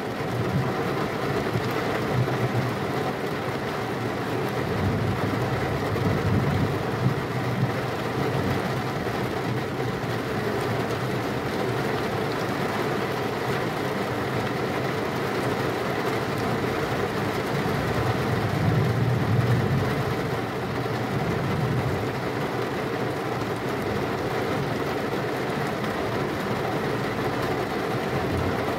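Heavy rain falling steadily, with a low roll of thunder about five seconds in and another around twenty seconds in.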